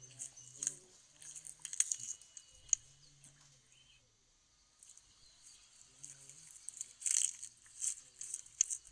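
Crisp crunching and chewing of bamboo, the eating sound of an augmented-reality giant panda animation. The crunches come in clusters, stop for a moment about four seconds in, then return near the end.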